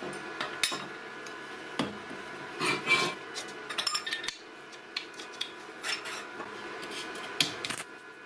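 Mitre-cut steel square-tube pieces clinking, knocking and scraping against each other and a steel work table as they are fitted together into a corner. The sharpest knocks come about three seconds in and again near the end.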